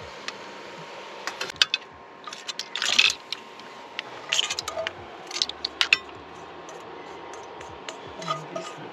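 Metal tongs and a spatula clinking and scraping against a frying pan and enamel plates as pasta and pipi shells are served out: a run of sharp clicks and short scrapes, loudest about three seconds in.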